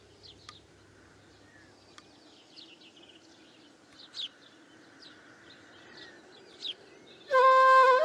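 Small birds chirping faintly and intermittently over a low background hiss, with a couple of soft clicks. Near the end, loud music with sustained melodic notes comes in.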